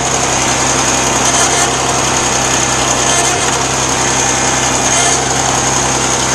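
Farmall 560's six-cylinder gasoline engine idling steadily, freshly cold-started with the choke just pushed back in.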